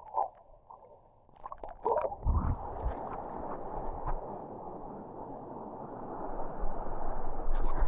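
Flowing river water, muffled and gurgling, as heard with the microphone dipped under the surface. A few knocks and splashes come about one and a half to two and a half seconds in, then a steady dull rush that grows a little louder near the end.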